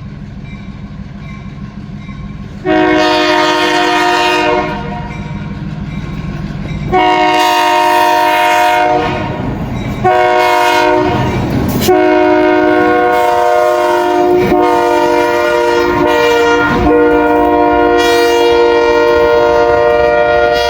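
Diesel locomotive approaching with a low engine rumble, then blowing its multi-chime air horn in four loud blasts; the last blast is long and held. A few faint knocks from the wheels sound under the horn.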